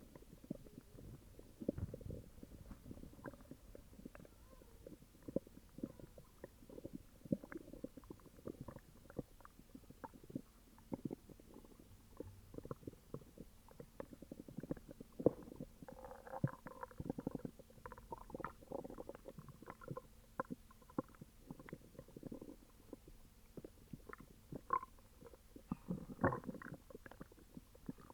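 A person's upset stomach gurgling and growling: a continuous run of small, low pops and bubbling, with higher, squeaky gurgles about halfway through and again near the end.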